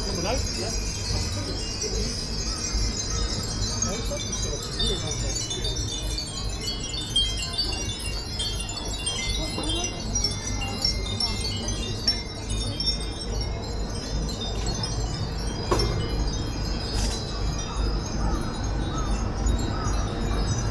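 Many furin, Japanese wind bells, ringing together: a dense, continuous scatter of high bell tones over a steady low rumble.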